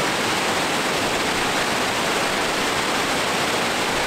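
Waterfall rushing in a steady, unbroken wash of falling water.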